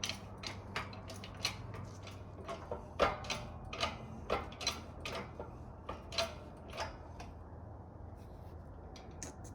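Shop press working to force fifth gear onto a transmission countershaft: a run of short metallic clicks and knocks, about two or three a second, with the sharpest knock about three seconds in. The clicking dies away after about seven seconds as the gear seats.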